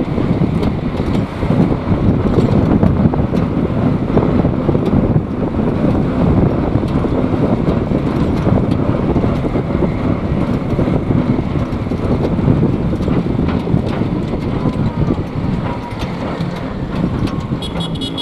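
Steady rush of wind on the microphone of a moving vehicle, over the engine and road noise of driving along a road. A horn toots briefly near the end.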